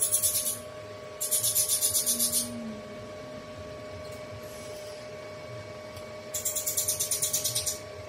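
Rapid rasping from a caique, about ten strokes a second, in three bursts: briefly at the start, for over a second soon after, and again for about a second and a half near the end. A faint steady electrical hum lies under it.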